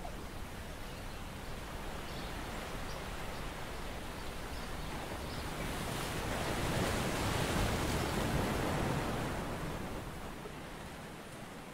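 Shallow seawater sloshing and lapping, a steady wash that swells louder for a few seconds in the middle.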